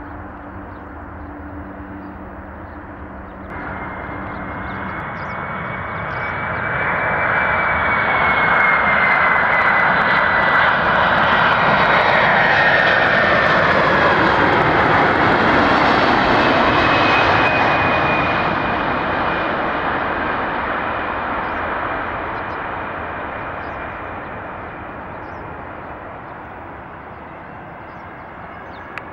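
Jet cargo airliner passing close by: engine noise builds, peaks for about ten seconds in the middle, then fades away. A high engine whine drops in pitch as the aircraft goes past.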